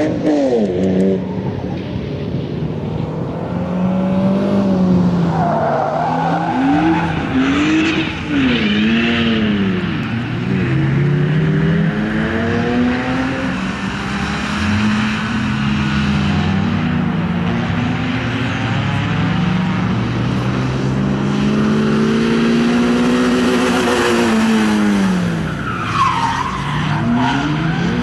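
Peugeot 306 hatchback's engine revving hard and dropping off again and again as it is driven flat out through a twisty track course, with tyres squealing as it slides through the corners.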